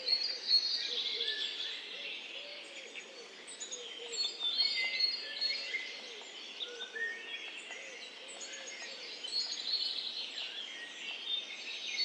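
Small garden birds chirping and singing, many high calls overlapping, with a faint low repeated note underneath.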